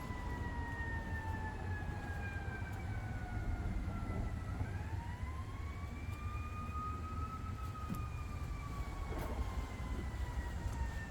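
Emergency vehicle siren wailing, its pitch slowly falling, rising again about halfway through, then falling, over a steady low rumble.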